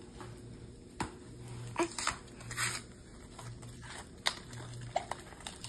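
Paper mailer being handled and pulled open: a few sharp crackles and a short rustle of paper.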